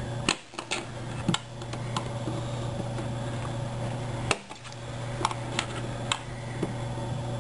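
Scattered sharp clicks of steel pliers against the nuts and screws of a plywood printer frame as the nuts are checked for tightness, over a steady low hum.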